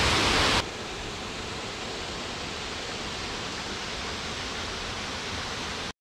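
Steady rushing of a waterfall close by, which drops suddenly to a quieter, duller rush of water about half a second in. The sound cuts out briefly just before the end.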